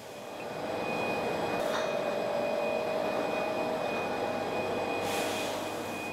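Forklift running as it carries a pallet of glass bottles: a steady mechanical hum with a whine, and two brief hisses, one about a second and a half in and one about five seconds in.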